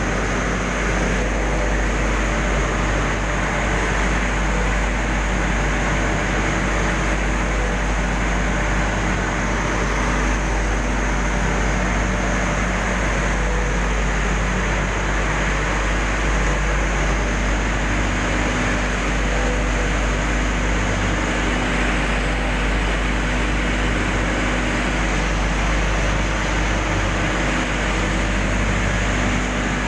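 Industrial furnace running: a loud, steady hum and rush with a low drone, unchanging throughout.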